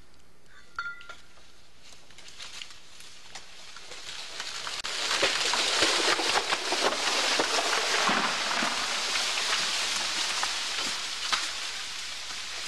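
A tall tulip poplar falling, its crown crashing through the branches of neighbouring trees: a dense crackling and snapping of limbs and leaves that swells from about four seconds in, is loudest a couple of seconds later, and slowly dies away.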